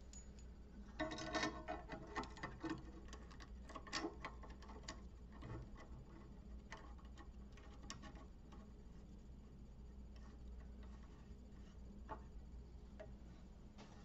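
Faint metal clicks and light rattling from a refrigeration pinch-off tool being fitted onto a copper process stub and its wing nuts turned by hand. There is a quick cluster of clicks about a second in, scattered ticks until about halfway, and then only a low steady hum.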